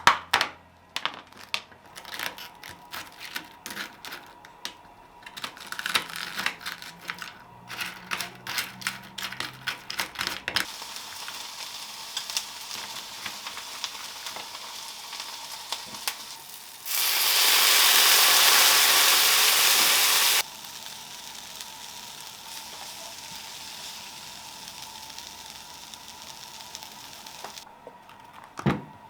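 Kitchen work: about ten seconds of utensils and containers clicking and knocking, then a steady sizzle of food frying in a pan, much louder for about three seconds in the middle.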